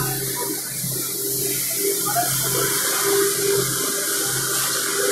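Steady machine noise: a hiss over a low hum and a mid-pitched drone, growing a little louder about two seconds in.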